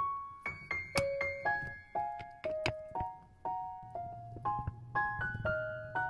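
Background music: a light piano or electric-keyboard melody of single notes, about two a second.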